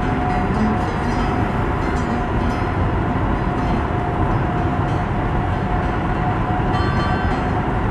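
Steady road and engine rumble heard inside a car's cabin while it drives at highway speed through a tunnel, with a faint steady tone running under it.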